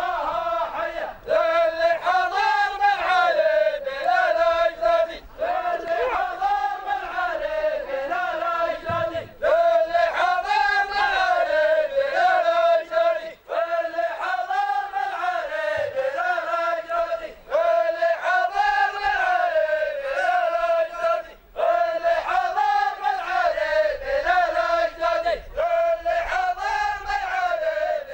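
A line of men chanting together in unison, unaccompanied: a slow, wavering melodic line sung in phrases of a few seconds with short breaks between them.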